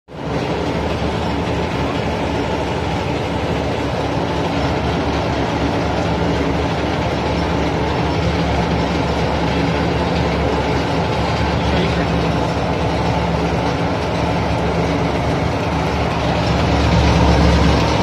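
Stainless-steel intestine cutting and washing machine running steadily: a constant motor hum with water spraying and splashing through the machine. It gets a little louder near the end.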